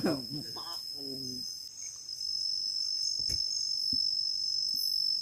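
Night insects, likely crickets, keep up a steady high-pitched drone. In the first second or so there are brief low voices, and a few soft knocks follow.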